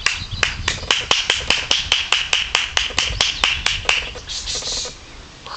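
A person's rapid tongue clicks, about five a second, driving a horse on; the clicks stop about four seconds in and a short hiss follows.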